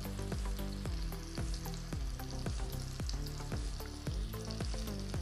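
Butter sizzling and spitting in a frying pan as minced-chicken kebabs fry, a steady hiss. An evenly repeating low beat with steady low tones runs underneath.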